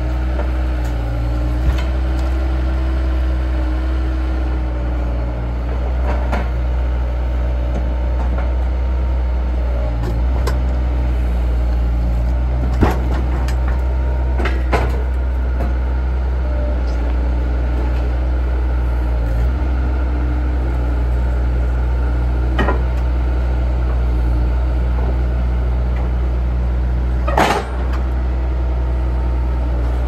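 Skid steer loader's engine running steadily under load as it pushes and rolls a large log onto a sawmill track, with a few sharp knocks along the way, the loudest near the end.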